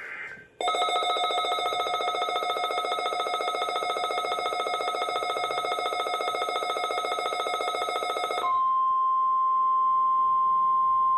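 The tail of an EAS data burst, then a WR-400 weather radio's built-in alert alarm sounds as a loud buzzy, rapidly pulsing tone for about eight seconds. It then gives way to the broadcast's single steady 1050 Hz warning tone, the signal that a snow squall warning follows.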